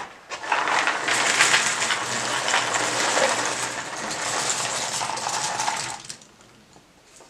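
Dense clatter of many small hard objects rattling and tumbling together for about six seconds, then stopping.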